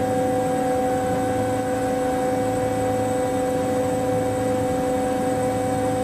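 Rally car engine running at steady revs: a constant drone with a few fixed tones over road and wind noise, unchanging throughout.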